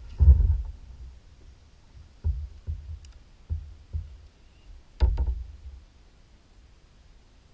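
Irregular low, hollow thumps and knocks carried through the kayak hull, about eight in all, the loudest near the start and a cluster about five seconds in, with a couple of faint clicks.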